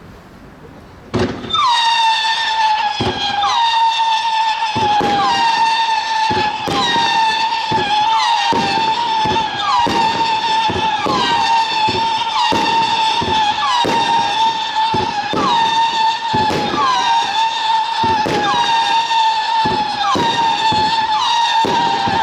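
Tropic Scream firework battery firing whistling shots one after another, starting about a second in. Each launch thuds and sets off a new high whistle with a quick pitch flick, about every one to one and a half seconds, so the whistles overlap into a continuous screaming tone.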